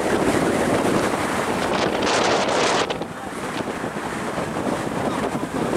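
Wind buffeting the microphone: a steady, heavy rumbling noise, with a brief louder hiss about two seconds in before it eases slightly.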